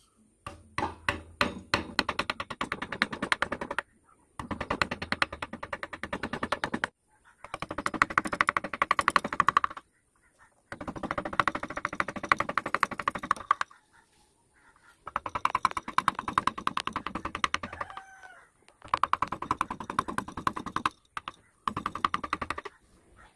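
Small wood-carving gouge driven by rapid light taps, cutting vein grooves into a carved wooden leaf: quick tapping in runs of two to three seconds with short pauses between.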